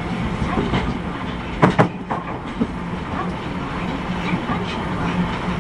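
Running sound inside an Osaka Metro 31 series subway car: a steady hum and rumble of the moving train, with two sharp wheel clacks close together over a rail joint about a second and a half in, and a lighter clack a moment later.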